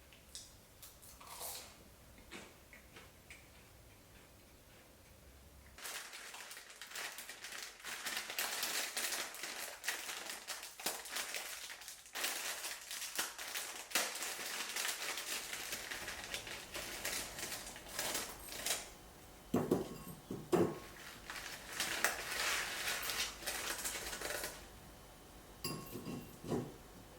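Kitchen food-preparation sounds: a few light clicks, then a long stretch of dense crackling and rustling from about six seconds in until near the end, with a couple of duller knocks in the middle and more clicks at the close.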